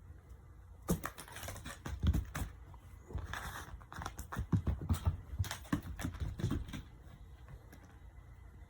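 Cats scrabbling and pouncing while playing with a cat teaser toy: a busy run of quick clicks and scratches from paws and claws on the floor, starting about a second in and stopping near the end.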